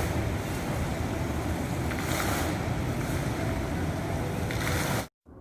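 Steady outdoor background noise of wind and traffic, with no clear single source, which cuts off abruptly right at the end.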